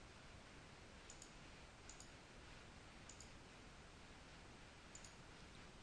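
Four faint pairs of computer mouse clicks, a second or more apart, over near-silent room tone.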